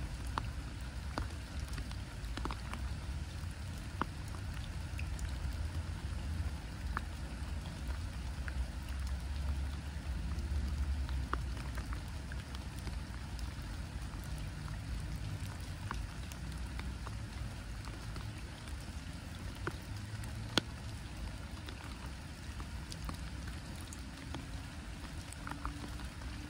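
Rain falling on a pond's surface: a steady hiss with many separate drops ticking close by, over a low rumble. One sharper drop click stands out about three-quarters of the way through.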